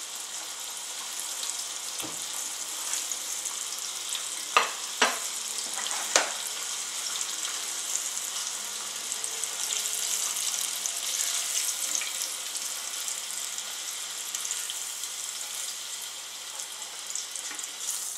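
Coated pieces of Nile perch deep-frying in hot oil in a small saucepan: a steady sizzle, with three sharp pops between about four and six seconds in.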